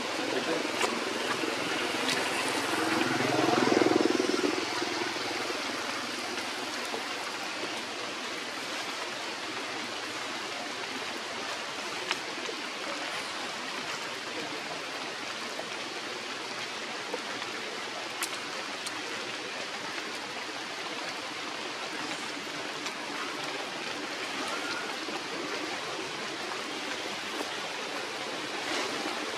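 Steady rushing of running water, like a stream, with a short louder sound about three to four seconds in.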